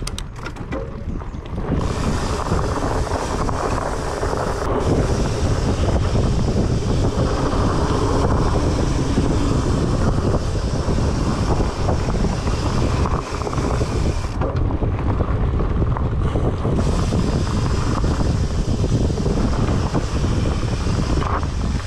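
Wind rushing over the microphone as a fat-tire mountain bike gathers speed on a downhill, the noise rising sharply about two seconds in. Beneath it, constant knocking and rattling from the ride over rough ground.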